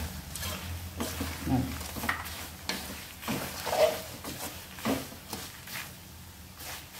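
Slotted steel spoon stirring and scraping a dry mix of fried peanuts, roasted gram, garlic, chillies and curry leaves around a metal pan, in irregular strokes that thin out near the end, over a low steady hum.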